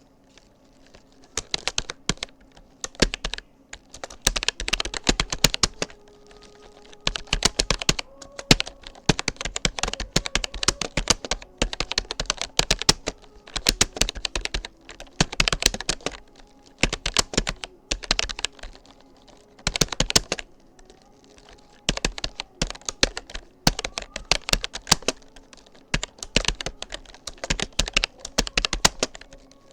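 Typing on a Rapoo computer keyboard during a typing-speed test at about 37 words per minute: quick runs of key clicks broken by short pauses.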